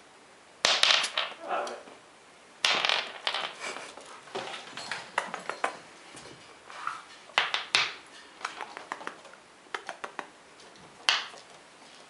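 A pet squirrel scrabbling about on a hardwood floor: irregular bursts of sharp scratching and clicking, the loudest under a second in and near three seconds.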